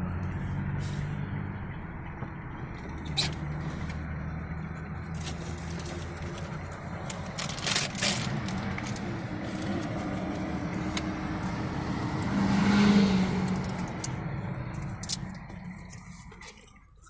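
Car engine hum and road noise inside the cabin while driving, with scattered clicks and knocks. The noise swells about thirteen seconds in and fades away near the end.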